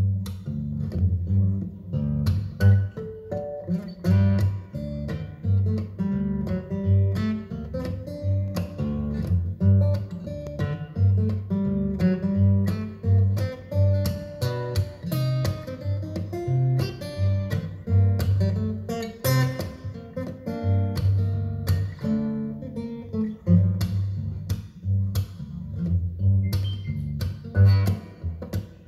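Guitar-led music, a plucked acoustic guitar over a steady bass line, played from a phone through a 5-watt Nelson Pass Amp Camp class A amplifier into a small 3-inch LG speaker.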